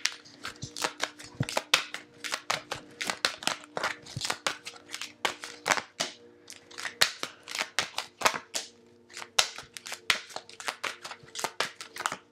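A tarot deck being hand-shuffled and cards dealt onto a table: a quick run of sharp card clicks and slaps, several a second, with a brief lull about two-thirds through.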